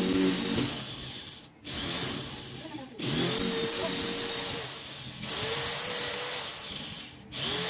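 Electric drill boring a hole, run in several bursts of one to two seconds with brief stops between. In each run its whine settles to a steady pitch.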